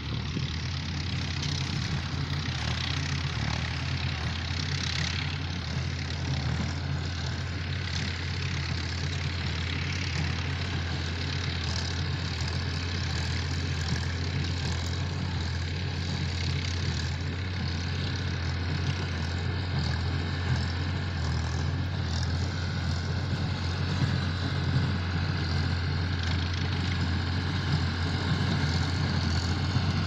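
Tractor engine running at a steady pace while it pulls a small square hay baler, a constant low drone that grows slightly louder toward the end.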